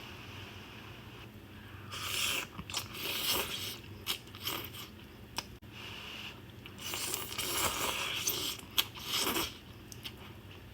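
A person biting and chewing mouthfuls of food, in irregular bursts of a second or so with short pauses between.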